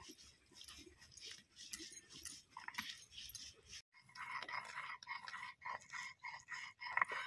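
Spices being ground by hand on a flat grinding stone: stone rubbing on stone in rough back-and-forth rasping strokes. After a break the strokes come about three a second, with a high whining squeal running over them.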